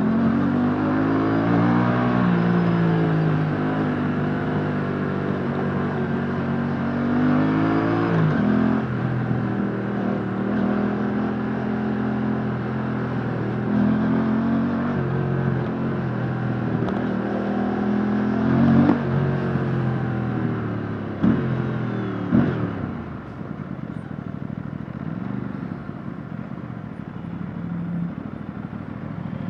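Aprilia RS457's 457cc parallel-twin engine through its stock exhaust, heard onboard while riding: the pitch climbs under acceleration and drops at each gear change. About two-thirds in come a few quick revs with falling pitch, then the engine settles to a quieter, lower steady run.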